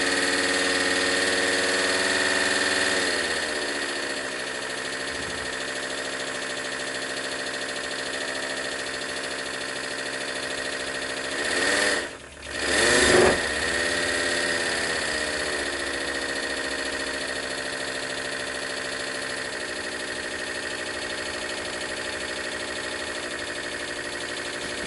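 A model five-cylinder radial engine (Rudy Kouhoupt Radial 5) running on compressed air. It slows a little about three seconds in. About twelve seconds in its speed sags almost to a stop, then it picks up quickly and runs steadily again.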